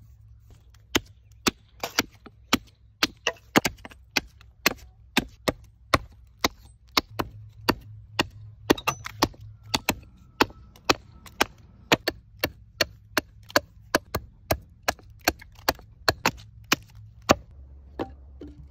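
Axe blows chopping into a green-wood spoon blank held on a chopping stump: a steady run of sharp strikes, about two a second, stopping shortly before the end.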